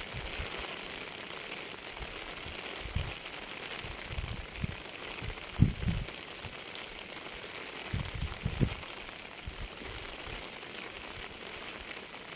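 Steady hiss of falling rain, with occasional low thumps, the loudest about five and a half seconds in and a cluster around eight seconds.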